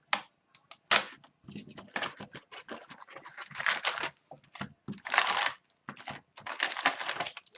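Shrink-wrap and cardboard being torn open and crinkled by hand, in irregular bursts of tearing and rustling with a few sharp clicks. It is the unwrapping of a sealed hobby box of trading cards.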